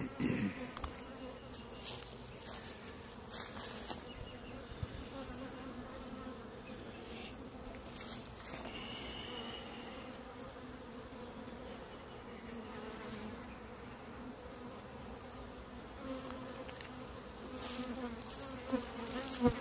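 Honeybees buzzing on a frame of comb lifted out of an open hive: a steady low hum, with a few faint clicks.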